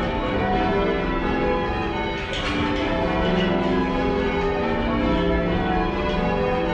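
A light ring of ten church bells rung in changes, heard from the ringing room beneath them, where they sound slightly mushy: a continuous stream of overlapping bell strikes with long ringing tones.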